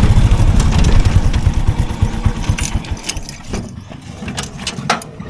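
Motorcycle engine running with a fast low pulsing that fades away about three seconds in, leaving a few light clicks.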